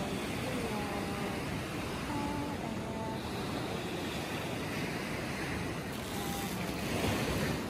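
Sea surf washing onto a sandy beach, with wind on the microphone: a steady, even rush.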